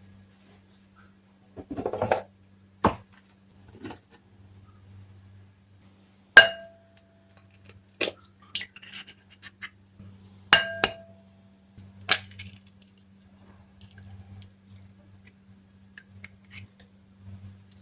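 Kitchenware being handled and set down: a scattering of sharp clinks and knocks, two of them ringing briefly like struck crockery, over a faint steady low hum.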